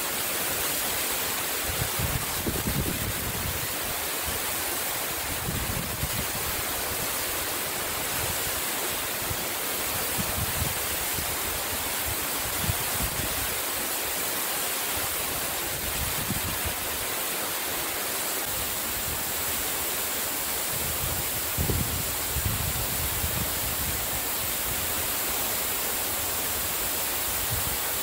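Waterfall pouring steadily into a plunge pool, a dense, even rush of falling water. A few brief low rumbles come through, about two seconds in and again past twenty seconds.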